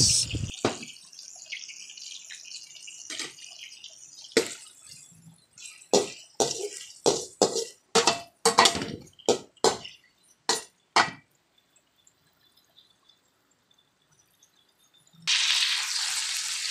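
Pork cubes frying in a stainless steel wok: a fading sizzle, then about a dozen sharp clicks and knocks, a few seconds of near quiet, and a loud sizzling hiss that starts suddenly near the end.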